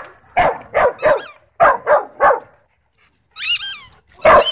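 A dog barking in short bursts: three barks, then three more. Just after three seconds there is a high whine, and one more bark comes near the end.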